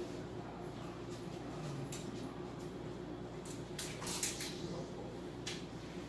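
Quiet room tone: a steady low hum, with a few faint clicks and rustles about four seconds in.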